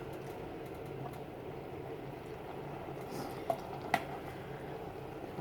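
Mixed vegetables cooking in a pan on the stove: a steady soft bubbling hiss over a low hum, with two light clicks about three and a half and four seconds in.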